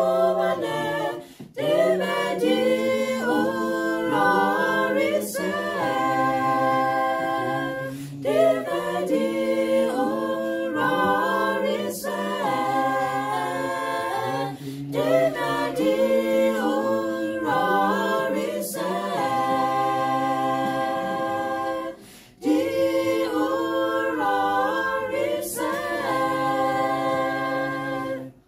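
Small mixed choir of male and female voices singing a Sesotho hymn a cappella in harmony, with chords held in phrases a few seconds long and short breaks for breath between them. The singing stops abruptly near the end.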